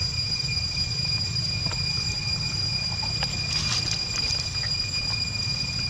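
Light scattered rustles and clicks in dry leaf litter, clustered around the middle, as a macaque moves over the forest floor. A steady high-pitched whine and a low rumble run underneath.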